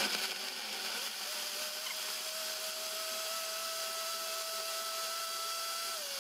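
Oster countertop blender's motor running, puréeing hot broth with vegetables. Its whine rises in pitch about a second in as the speed is stepped up, holds steady, and starts to drop right at the end.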